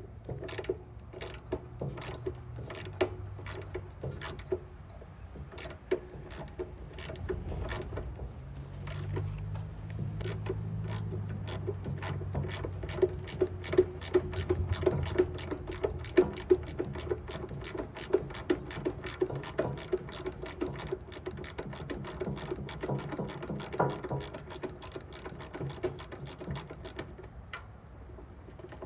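Rapid clicking of a ratchet wrench working a tight engine oil drain plug, several clicks a second.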